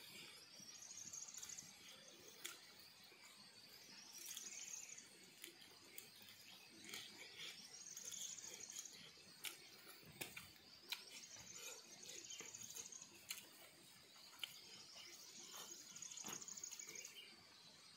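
Quiet open-air background in which an insect's high chirring call comes back for about a second at a time, every few seconds. Soft clicks and smacks of eating with the fingers are scattered through it.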